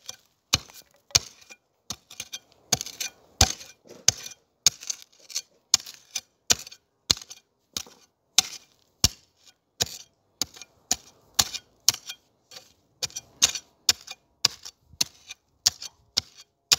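Metal hand hoe blade chopping into packed garden soil, breaking it into clods: sharp, gritty strikes about twice a second, steady throughout.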